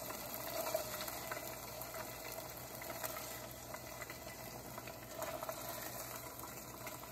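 Hot oil sizzling steadily in a nonstick saucepan, with a few light scrapes and taps of a plastic spoon against the pan as chicken pieces are scooped out.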